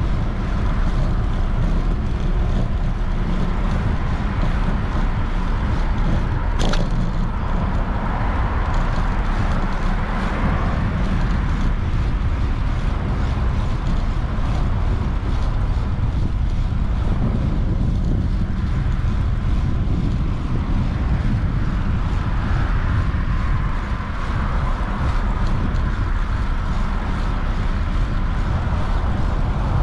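Wind buffeting the microphone of a moving bicycle, mixed with passing car traffic: a steady rush of noise heavy in the low end. A single sharp click about seven seconds in.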